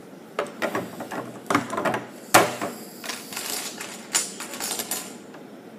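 Plastic Lego plates clicking and clattering against a wooden tabletop as a long strip of them is slid and laid down: an uneven run of sharp clicks and knocks, the loudest about two and a half seconds in.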